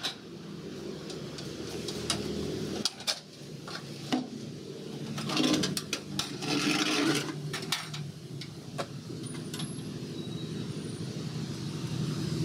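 Sheet-metal tins of a tin-can smoker knocking and scraping as they are handled, with a longer rustle about five seconds in as the smoked sheepskin is pulled out. Under it runs a steady low rumble of traffic.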